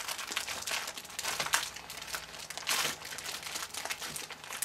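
Clear plastic bag crinkling in irregular rustles as hands handle it, a few louder crinkles among softer ones.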